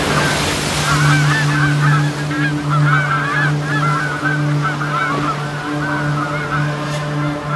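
Ocean surf washing at the start, then a flock of birds calling continuously over a low, steady hum that pulses every half second or so.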